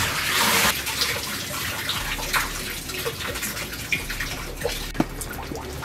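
Water held in the sump pump discharge line pouring out through the propped-open check valve and splashing into the water in the sump pit. The flow is heaviest at first and eases to a lighter pour under a second in, with a few light knocks.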